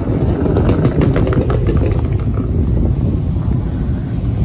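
A Lexus sedan's engine running as the car drives slowly past, a steady low rumble with a few short crackles about a second in.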